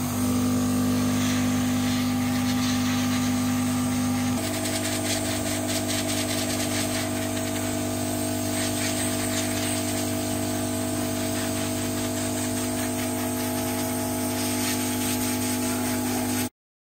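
Hot-air gun of an SMD rework station blowing steadily, its fan whirring with a steady hum under it, heating a phone's charging sub-board to melt the solder for replacing the charging socket. The tone shifts about four seconds in, and the sound cuts off suddenly near the end.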